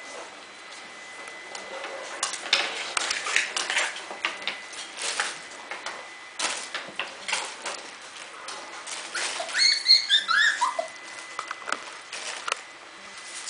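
Cardigan Welsh Corgi puppies' claws clicking and pattering on a tile floor as they scramble in play. About nine to eleven seconds in comes a quick run of short, high-pitched puppy squeals, each falling in pitch.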